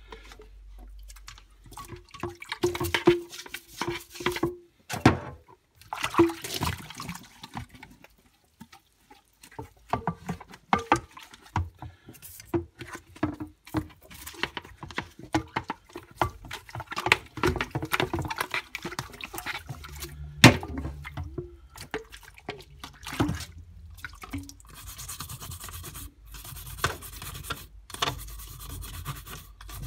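Plastic Dyson vacuum cyclone parts being wet-cleaned and handled: irregular knocks and clatter, with wet rubbing and dripping. A steady hiss joins near the end.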